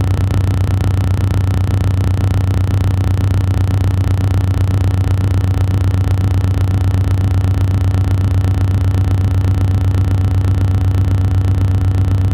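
A loud, steady low-pitched hum with fainter higher overtones, unchanging throughout.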